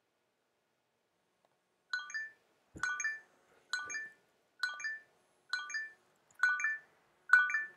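An electronic two-note chime repeating seven times, a little under a second apart, like a phone ringtone. It starts about two seconds in and gets louder on the last two rings, with a soft knock about three seconds in.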